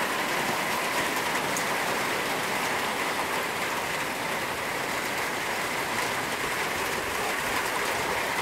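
Heavy rain falling steadily on a concrete patio and a swimming pool: an even hiss with faint scattered taps.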